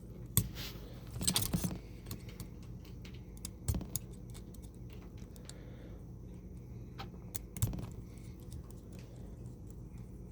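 Scattered light clicks and taps of a small hex screwdriver working on an RC crawler's plastic chassis while the servo's mounting screws are backed out. There is a small cluster of clicks about a second and a half in, and single clicks near 4 s and near 8 s.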